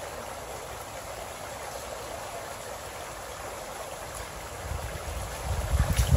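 Shallow creek babbling steadily over rocks, with wind rumbling on the microphone from about five seconds in.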